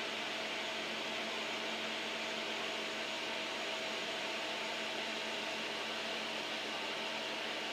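Cooling fan of an air-cooled argon ion laser running steadily while the laser is on: an even rush of air with a faint steady hum underneath.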